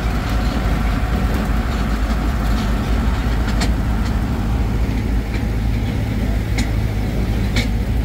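A motor vehicle engine running steadily with a low rumble, with a few faint clicks over it.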